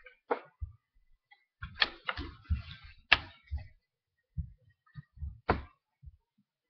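Handling noise from objects being moved close to the microphone: irregular sharp clicks and knocks, about six, mixed with short dull thumps, with a quiet stretch around four seconds in.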